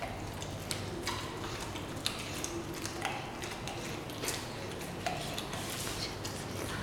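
German Shepherd eating from a stainless steel bowl: irregular clinks and knocks of its muzzle against the metal bowl as it eats.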